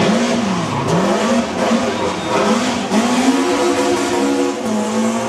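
BMW M3 E30 Group A race car's four-cylinder engine revving hard under acceleration. Its pitch dips sharply about a second in, then climbs in repeated rising sweeps with brief drops between them.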